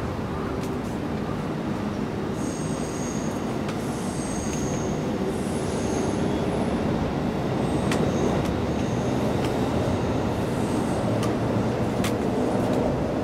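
Steady low rumble that grows slightly louder, with a few brief high-pitched squeals on top and faint ticks now and then.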